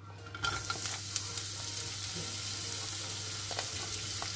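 Sliced onions hitting hot oil in a nonstick pan and sizzling: the sizzle starts about half a second in and runs as a steady hiss, with a few light clicks.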